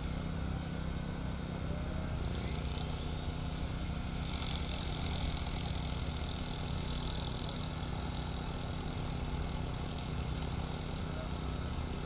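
Corded electric rotary hammer running with its bit driven into gravel, giving a dense, steady hammering hiss over a steady low hum.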